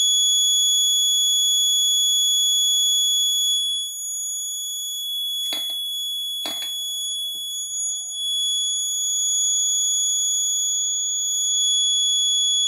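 Piezo alarm buzzer on an Arduino crack-detection kit sounding one continuous high-pitched tone: the crack alarm, left on after a crack has been detected. Two sharp clicks come a second apart around the middle.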